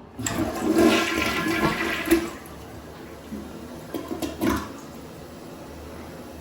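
Toilet flushing: a sudden loud rush of water for about two seconds, a few shorter gurgling gushes about three to four and a half seconds in, then a steady hiss of water running as it refills.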